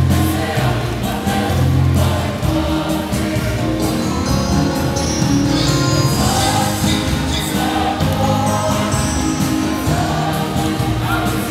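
A large group of voices singing a Samoan song together, choir-style, in long held notes.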